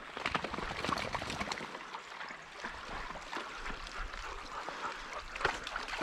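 A bird dog wading through a shallow, rocky creek: irregular splashes and sloshing steps over the steady trickle of running water.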